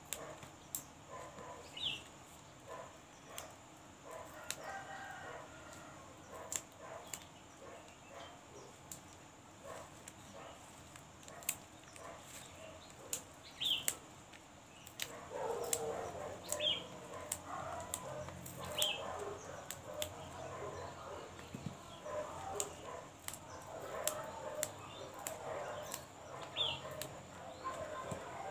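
Water spinach (kangkung) stems being snapped by hand, crisp sharp snaps at irregular intervals. Chickens cluck and a rooster crows in the background, busier and louder in the second half.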